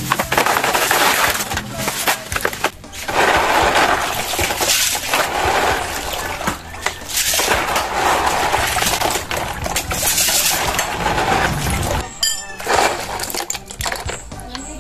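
Hands swishing and rubbing a batch of snails in a basin of water, the shells clattering against each other. Near the end, a run of sharp knocks and clinks as a large knife chops the snail shells on a wooden board.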